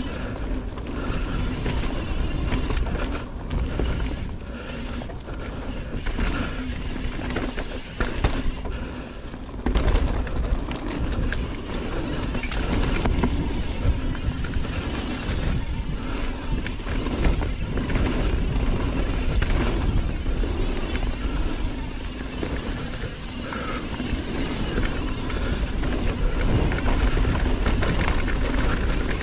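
Mountain bike, an Evil Following, riding fast down a dirt trail as heard on a GoPro: wind rumbling on the microphone over tyre noise on dirt and the frame and drivetrain rattling, with jolts from bumps in the trail.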